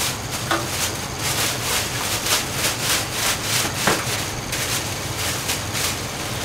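Repeated scraping strokes against a wok in a commercial Chinese kitchen, about two to three a second, over a steady low hum.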